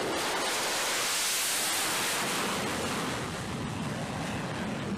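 Jet noise from an F-35C at launch thrust during a carrier catapult launch: a steady, hissing rush that swells about a second in and eases off after about three seconds.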